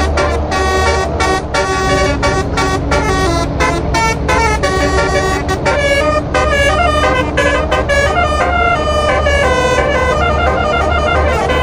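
Lorry-mounted telolet musical air horn playing a fast melody in short stepped notes, over a steady low hum.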